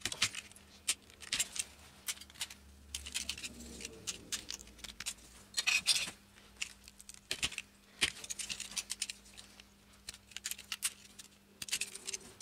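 Utility knife scraping and cutting along the edges of hard plastic tile-levelling wedges in short, irregular scratchy strokes, with small clicks as the plastic pieces are handled and set down on a plywood board.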